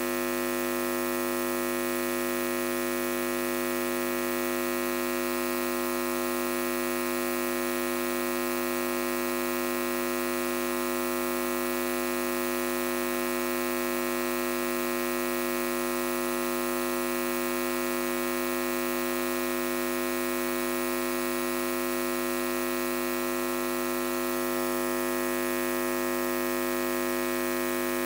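Steady electrical mains hum: a buzz made of many fixed, unchanging tones.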